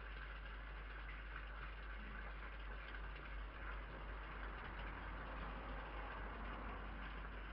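Steady background hum and hiss from a garden security camera's microphone, even throughout, with no distinct sound events standing out.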